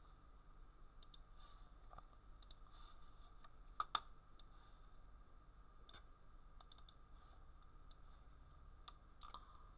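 Sparse, faint clicks of a computer mouse, with a louder double click about four seconds in, over a faint steady hum.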